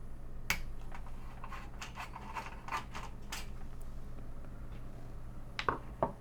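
Scattered clicks and light metallic taps from a screwdriver and the Commodore 128's metal RF shield and screws being handled during disassembly: a sharp click about half a second in, a run of taps in the middle, and two more near the end. A faint steady low hum sits underneath.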